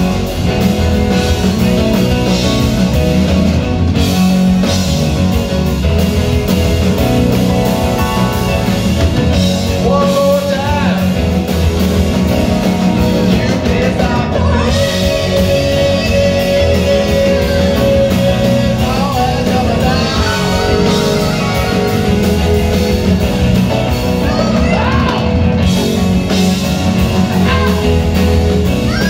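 A rock band playing live: drum kit, electric guitar, bass and keyboards, with singing over the band.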